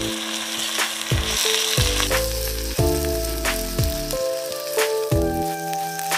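Raw rice grains sizzling in hot chicken fat in a pan as they are stirred with a spatula, the sizzle strongest in the first two seconds. Background music with a steady beat plays throughout.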